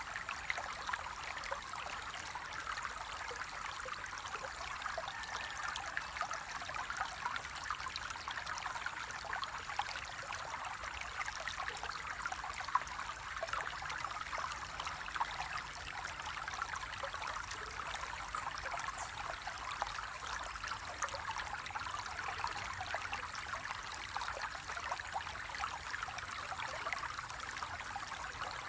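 Flowing water running steadily, with a fine trickling, splashing texture and no pauses.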